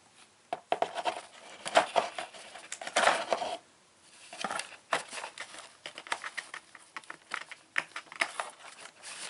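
Rustling and light clattering of small objects being handled, with scattered clicks and knocks, as someone rummages for a pair of scissors. The handling comes in two spells with a short pause between them, a little before halfway through.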